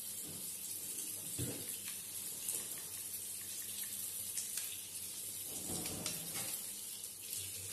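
Tap water running steadily into a sink, the stream splashing over a spinning reel held beneath it.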